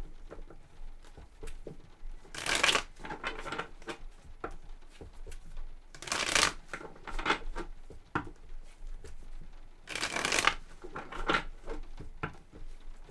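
A deck of tarot cards being shuffled by hand: three louder rustling shuffles about four seconds apart, with soft card clicks and slides between them.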